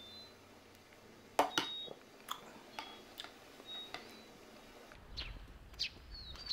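Faint, short high chirps of small birds, with a few sharp clicks and knocks. About five seconds in, a low rumbling background noise comes up, and near the end a bird chirps a quick run of notes.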